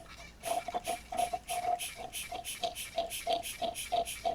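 Hand-pumped suction extractor being worked in quick, even strokes, about three or four a second, each stroke giving a short squeak with a hiss. It is drawing old gear oil out of a manual gearbox's shifter housing.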